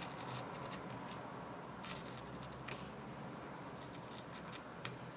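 Very sharp razor blade scoring straight lines through a stencil sheet laid on cardboard: faint, short scratching strokes, with a small click near the middle and another near the end.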